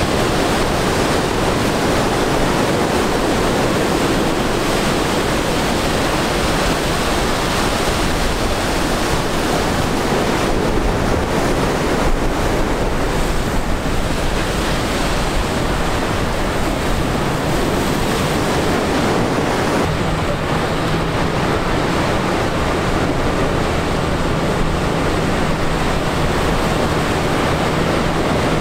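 Rough surf breaking and rushing along a rock jetty, with wind buffeting the microphone. Under it runs the low, steady drone of a commercial dredge fishing boat's diesel engine, growing more distinct in the last third as the boat passes close.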